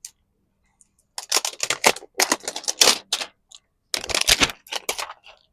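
Rapid clicking and crackling of plastic as a miniature toy refrigerator and its packaging are handled and worked at to get the door open, in two clusters.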